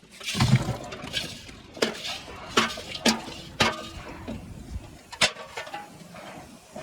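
Metal objects clanking and clinking against each other: a run of sharp metallic knocks, about six louder ones, some leaving a short ring, over a lighter clatter of metal being handled.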